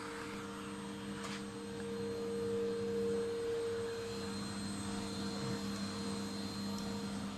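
Electric vacuum cleaner running: a steady motor hum that swells slightly about two to three seconds in.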